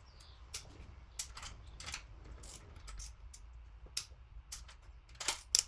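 A few scattered sharp clicks and taps from hand tools working on the engine during head-bolt tightening, ending in a quick, louder cluster of clicks.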